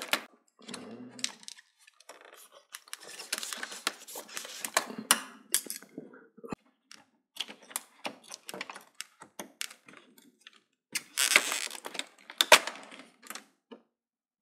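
Small plastic retaining clips being pried and popped out of a TV's LED backlight panel: a string of irregular clicks, snaps and light scraping, busiest and loudest about eleven to thirteen seconds in.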